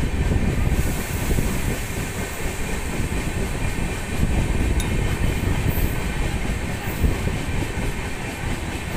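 Passenger train running on the track: a steady rumble of wheels and coach.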